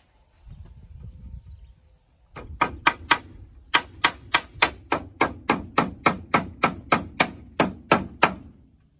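A rapid, even run of sharp knocks, like hammer blows, about four a second: four strikes, a brief pause, then about sixteen more before it stops. A low rumble comes before them.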